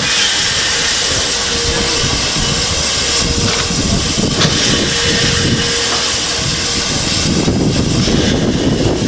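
GWR Castle class steam locomotive 5029 Nunney Castle standing at rest, hissing steam steadily.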